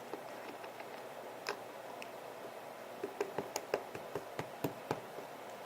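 Light taps and clicks from hands handling sand art materials, a few scattered at first, then a quick run of about a dozen in the second half.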